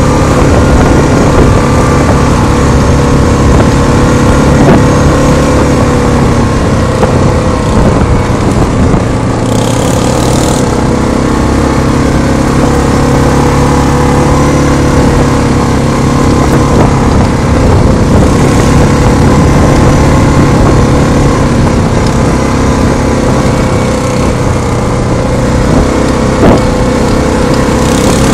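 Quad (ATV) engine running steadily while riding along a dirt trail, heard close up from the machine being ridden. A brief hiss about ten seconds in and a single sharp knock near the end.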